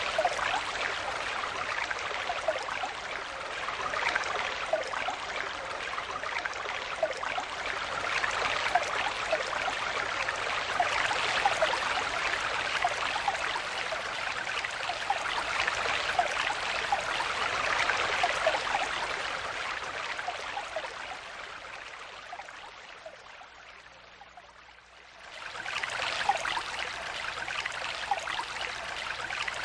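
Shallow stream flowing and burbling over stones, a steady rush with small gurgles. About two-thirds of the way through it fades down over a few seconds, then quickly comes back up.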